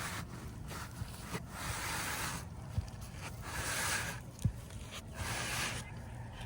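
Asphalt roof shingles scraping as they are handled during a repair: three drawn-out scraping strokes, with a couple of sharp knocks in between.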